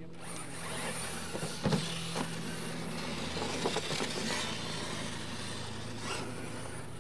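Several Losi LMT radio-controlled monster trucks racing over dirt: electric motors whining and tyres scrabbling, with a few sharp knocks about two seconds in.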